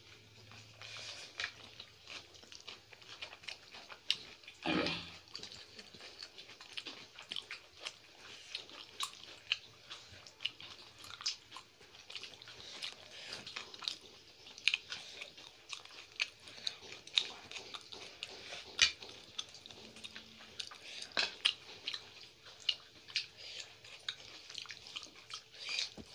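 People chewing a meal of rice and chicken curry eaten by hand, with wet mouth noises and many short, irregular clicks and smacks.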